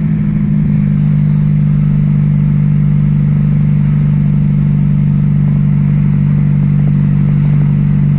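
Chevrolet Kadett cruising at a steady speed, its straight-piped exhaust (just a bare pipe, no muffler) droning at an even pitch, heard from inside the cabin.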